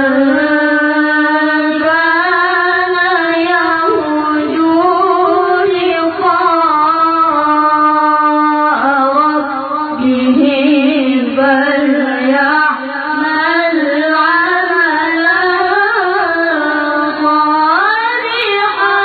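A child's voice reciting the Quran in melodic tilawah style, holding long notes with wavering ornaments and climbing in pitch near the end.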